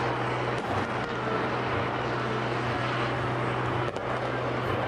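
A steady low engine hum runs under a dense wash of noise. A few faint pops from distant fireworks come about half a second in and twice near the end.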